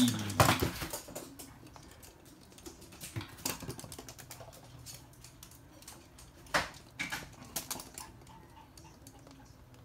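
Toy poodle's claws clicking and tapping on a hard laminate floor as it moves about: scattered sharp clicks, a quick cluster just after the start and the loudest single click about six and a half seconds in.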